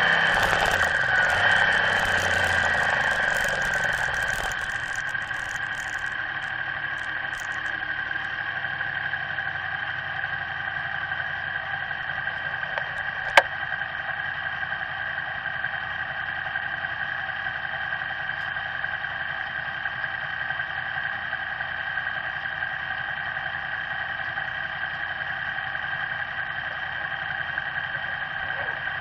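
Motorcycle engine winding down as the bike brakes to a stop, its pitch falling over the first few seconds, then idling steadily. One sharp click about thirteen seconds in.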